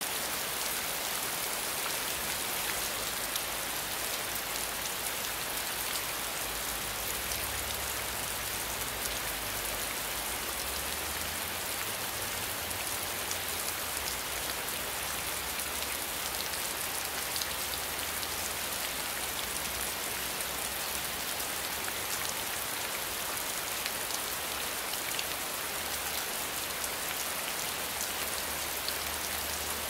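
Steady rainfall: a dense, even hiss of drops with many small, sharp drop ticks scattered through it.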